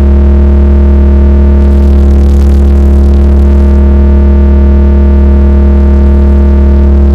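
Very loud carnival sound system (sound horeg) playing a sustained synthesizer chord over a heavy, steady deep-bass drone.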